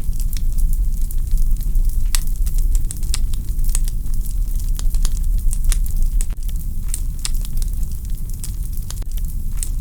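Wood fire burning in a fireplace: logs crackling with frequent irregular sharp pops over a low steady rumble of the flames.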